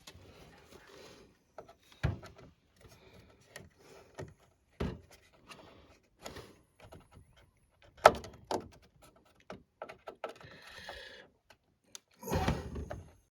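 Hands handling computer parts on a workbench: a series of light clicks and knocks, the sharpest about eight seconds in, and a short rustle near the end.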